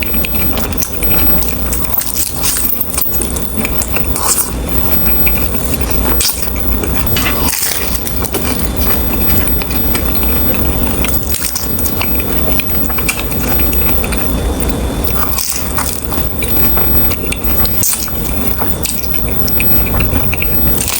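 Close-miked biting and chewing of a taco, with scattered short crackly bites over a steady low rumble.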